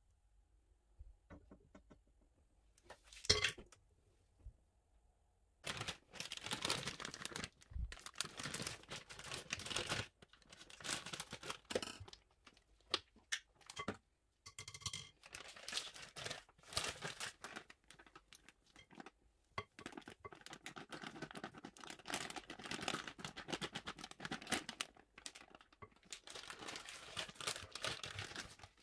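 A wooden spatula scraping and squishing softened butter around a ceramic mixing bowl in quick irregular strokes as the butter is creamed by hand. The strokes start about five seconds in, after a quiet spell broken by one sharp knock.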